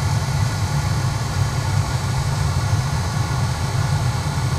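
Newly replaced blower motor of a 2001 Corvette C5's automatic climate control running steadily at high speed: a constant rush of air over a deep hum.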